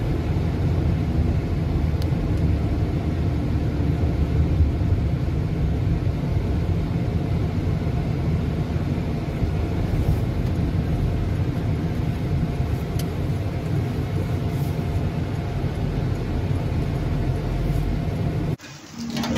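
Steady road and engine rumble heard from inside the cabin of a moving car, cutting off suddenly near the end.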